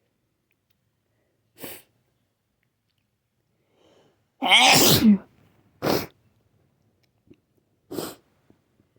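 A run of sneezes. A short one comes near two seconds in, then a loud voiced sneeze with a falling pitch lasting nearly a second, then two shorter, sharp ones about one and three seconds later.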